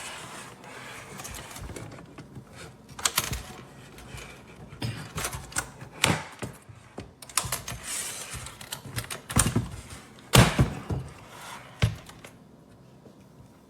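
Irregular clicking, scraping and knocking of hands working the battery slot and cover of a biometric pistol safe, sliding the parts into place. The loudest clack comes about ten seconds in and a sharp click follows a second later.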